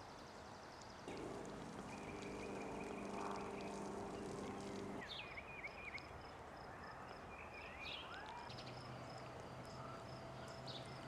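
Spring garden ambience: birds chirping and calling, with a steady low hum for a few seconds near the start and a thin, rapidly pulsing high note through the second half.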